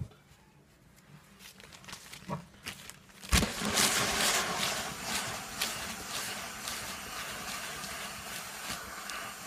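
Household iron set down on a sheet of newspaper about three seconds in, then pushed back and forth over it, the paper rustling and scraping under the soleplate, loudest at first and then steady; this is ironing through paper to melt wax out of clothing. Before it, only a few faint ticks.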